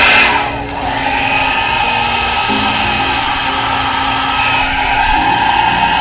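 Revlon 1875W ionic travel hair dryer blowing steadily. About half a second in, its noise drops briefly, then it settles back to steady running a little quieter.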